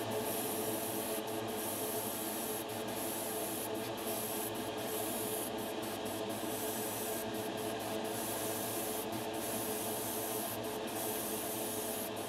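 Spray-painting equipment running: a steady rush of air over a motor hum, starting and stopping abruptly, with a high hiss that breaks off briefly many times, as when an airbrush trigger is released and pressed again.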